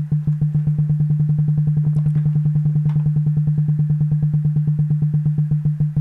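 Synthesized percussive tone from a Pure Data patch: a 150 Hz sine oscillator with a short decaying envelope and slight clipping distortion on each attack. It is retriggered in a rapid stream of pulses by a metronome whose tempo glides randomly, speeding up through the middle and slowing a little near the end.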